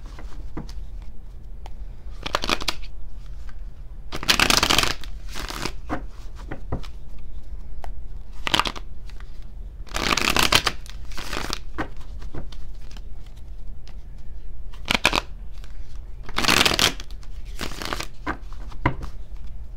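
Tarot deck being shuffled by hand: about a dozen short bursts of card rustling, one to two seconds apart, with brief pauses between.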